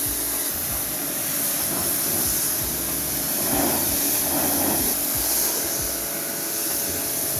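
Pressure washer running steadily: the spray jet hisses as it hits a moulded car floor carpet, over the steady hum of the washer's pump motor.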